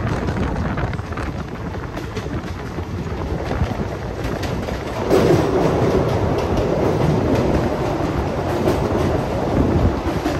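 ICF passenger coaches of an Indian Railways express running at speed, steel wheels on the rails with a steady running noise. The sound steps up in loudness about five seconds in.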